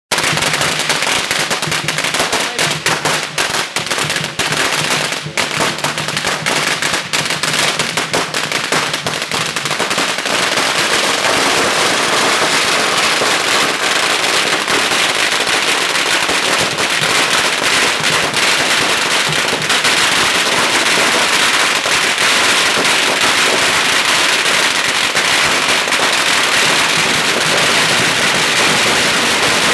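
Long strings of firecrackers hung on a frame going off: rapid sharp bangs with short gaps, merging after about ten seconds into a dense, continuous crackle.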